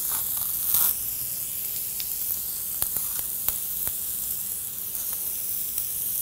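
Sausage patties and eggs sizzling on a griddle: a steady hiss with a few small pops, and a brief soft rustle just under a second in.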